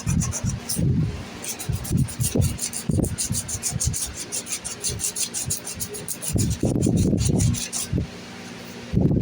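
Sandpaper being worked back and forth by hand over a red oak knife handle, a fast, even scratching that stops near the end. Air from a fan buffets the microphone with low, uneven rumbling.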